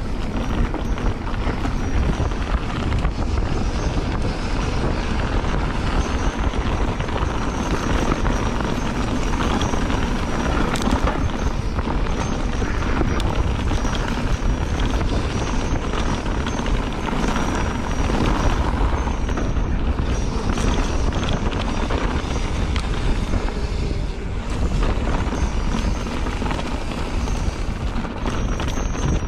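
Mountain bike riding a rough dirt trail, heard from the bike-mounted action camera: wind buffeting the microphone over tyre rumble and the rattle of the bike, a dense steady noise with no breaks.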